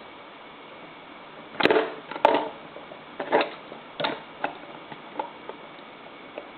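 Light plastic knocks and clatter of Lego pieces and a handheld remote being handled and fitted together: about six irregular clicks, the loudest two about a second and a half in.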